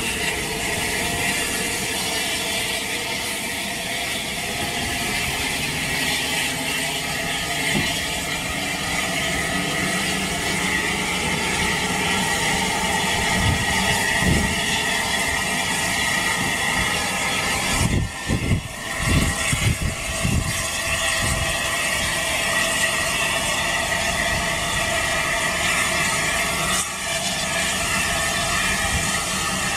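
Bulleid Battle of Britain class steam locomotive hissing steadily at rest or barely moving, with no exhaust beat. A short cluster of low thumps comes about two-thirds of the way in.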